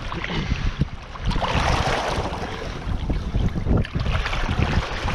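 Shallow surf sloshing and splashing around a bull shark held in the shallows, louder for a second or so about a second and a half in, with wind buffeting the microphone.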